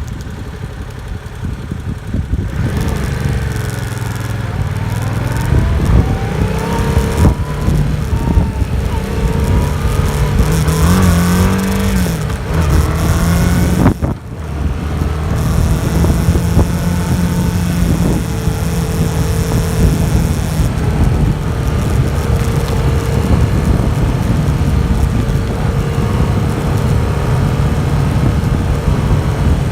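Yamaha MT-07's 689 cc parallel-twin engine on its stock exhaust, pulling hard with the pitch rising and falling through the first half, dipping sharply for a moment about halfway, then running on at a steady pitch. Wind noise hisses over it.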